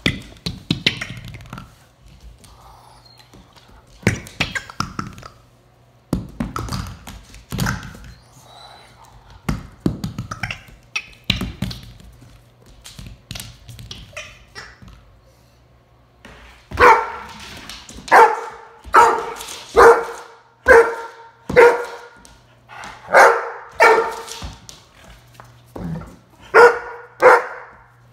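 A young Doberman barks about a dozen times over the last third, warily, at a big new bone that intimidates him. Before that, a rubber squeaky toy knocks about on a hardwood floor as the dog paws and mouths it.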